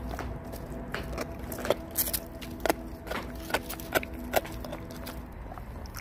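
Dog chewing raw meaty bones: a run of sharp, irregular crunches, most of them between about one and four and a half seconds in, over a faint steady hum.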